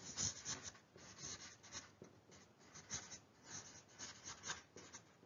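Whiteboard marker writing on a whiteboard: a run of short, faint strokes as a word is written out.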